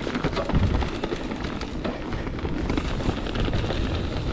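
Enduro mountain bike rolling fast down a dirt trail: a steady rush of tyre noise and wind on the microphone, broken by frequent short clicks and rattles of the chain and frame over bumps.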